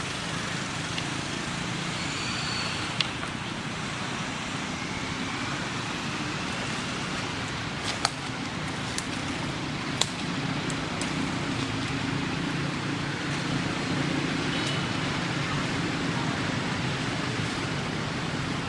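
Steady outdoor background noise with a low hum like distant traffic, broken by a few sharp clicks, the loudest about 8 and 10 seconds in.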